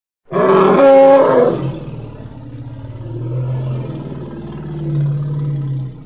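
Elephant roar sound effect: a loud call that wavers in pitch starts about a third of a second in, then drops into a long, lower drawn-out growl that swells again near the end before fading out.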